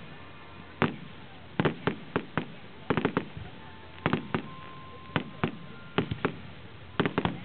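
Aerial fireworks shells bursting: an irregular string of sharp bangs, often two or three close together, spaced from a fraction of a second to about a second apart.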